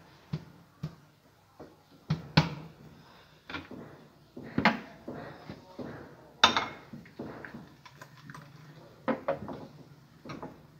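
Knocks and clinks of a blender jar being lifted and set down and glass bowls being handled on a tray. There are about a dozen separate sharp knocks, the loudest about six seconds in. The blender motor is not running.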